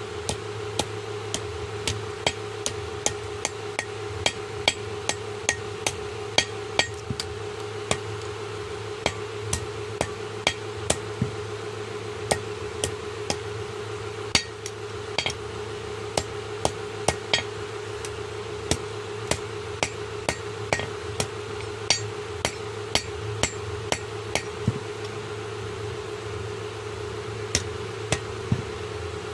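Blacksmith's hammer striking metal while forging a khurpi hand hoe: sharp ringing blows, about two a second, with a few short pauses. A steady machine hum runs underneath.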